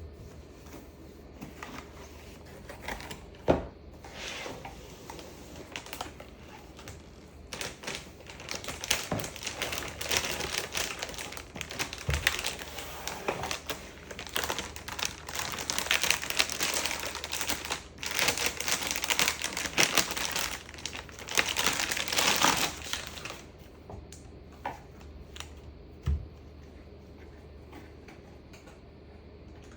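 Hands handling computer parts and their packaging: plastic crinkling and rustling with many small clicks, busiest in the middle, plus a sharp knock a few seconds in.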